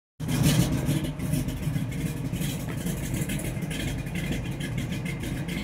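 A vehicle engine running steadily, with no change in revs.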